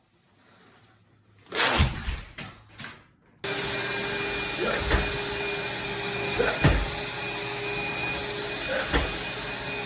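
A short clatter, then a vacuum cleaner switches on abruptly and runs with a steady hum and hiss. Three short thumps sound over it, and it cuts off suddenly near the end.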